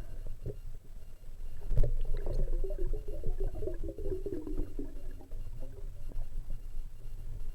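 Underwater sound as picked up by a submerged camera: a low rumble, a knock about two seconds in, then a few seconds of bubbling gurgle.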